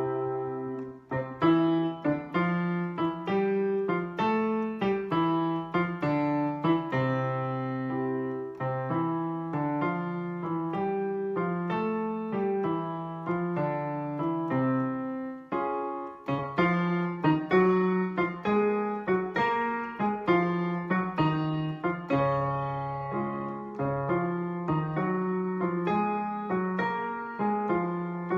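Piano playing the accompaniment for a singing exercise in leaps of a third: short phrases of notes repeated over and over, with a brief break and a fresh start about halfway through.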